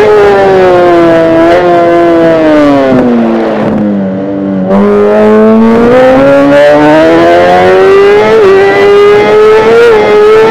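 Kawasaki ZX-10R inline-four engine running at high revs. The revs sink over about four seconds as the throttle comes off, bottom out with a brief quieter dip, then climb steadily back up, with a couple of small hitches near the end.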